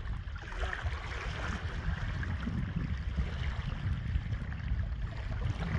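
Wind buffeting the microphone, a steady uneven low rumble, over the faint wash of water lapping around the wading angler.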